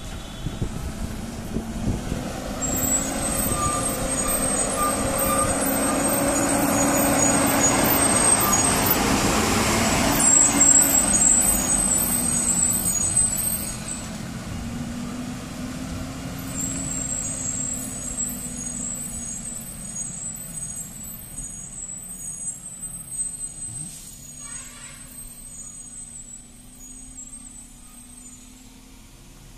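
Heavily loaded diesel lorry pulling up a hill road, its engine growing louder as it approaches and passes close, then fading as it moves away.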